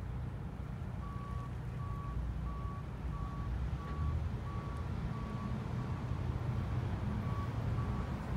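Reversing alarm of a fire department pickup backing a boat trailer down a launch ramp: a steady run of evenly spaced single-pitch beeps, about one and a half a second, starting about a second in, heard faintly across the river over a low rumble.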